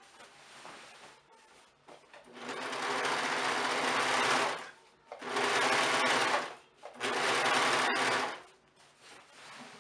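Brother 1034D overlock serger running in three bursts with short pauses between, starting about two seconds in, as it stitches and trims the raw edge of a cotton curtain panel to stop it fraying.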